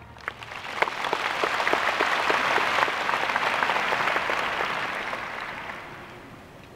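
Audience applauding in a large arena, starting just as the band's final chord dies away, swelling, then fading out.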